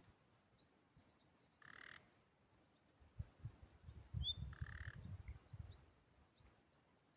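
Frog calling twice, each call a sharp high note followed by a short buzzy croak, over faint high peeps repeating about twice a second. An irregular low rumble runs from about three to six seconds in.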